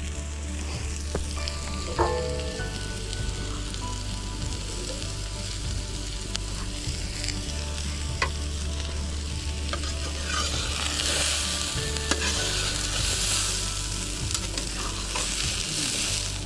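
Fish fillets sizzling in oil in a frying pan, a steady hiss that grows louder over the last few seconds. A few sharp taps sound along the way, the loudest about two seconds in.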